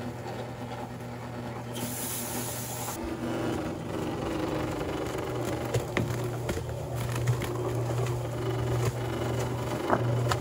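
Portable cement mixer running, its drum turning with wet type S mortar inside. About halfway through, the drum is tipped and the mortar slops out into a plastic mortar tub, with a couple of sharp knocks.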